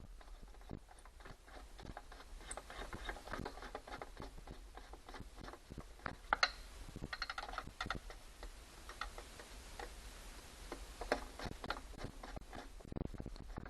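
Irregular light metallic clicks and clinks of hand tools working the bolts on an outboard motor, with one sharper clink about six and a half seconds in.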